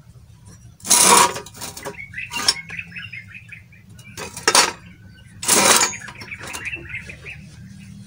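Metal parts of a homemade waste-oil camping stove clattering as they are handled: three loud clatters, one about a second in and two close together a little past halfway. Birds chirp quietly between them.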